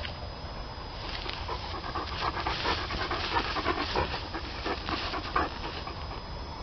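A Great Pyrenees dog panting close by, a quick run of breaths starting about a second in and easing off near the end.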